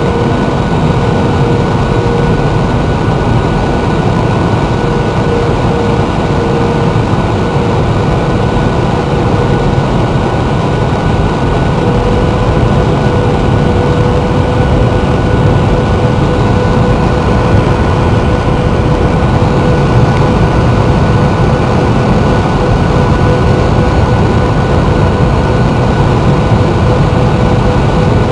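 Jet airliner cabin noise during landing: a loud, steady rumble of engines and airflow with a constant whine over it.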